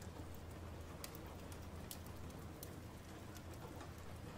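Steady, quiet low hum of an ambience bed, with scattered faint crackling ticks.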